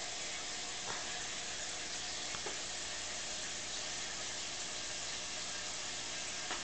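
Steady watery hiss of aquarium water circulating through the tank's filter, with a few faint clicks.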